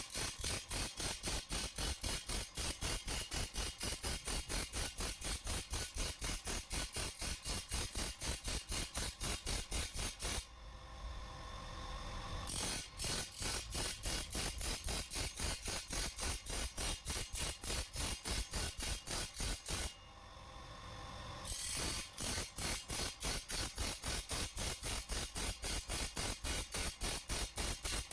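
Rapid, regular metal-working strokes, about four or five a second, as teeth and an edge are worked into a steel chaff-cutter blade. The strokes come in three runs, broken by two short pauses in which a steadier sound swells up.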